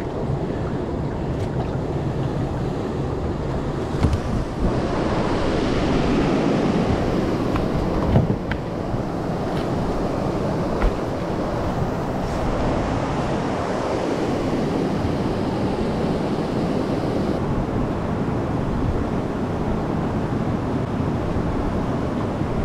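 Wind rushing over the microphone together with water noise, steady throughout, broken by a few short knocks partway through.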